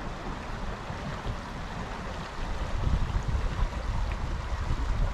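Water of a small stream running over riffles, a steady rushing hiss. A low, irregular rumble grows louder about halfway through.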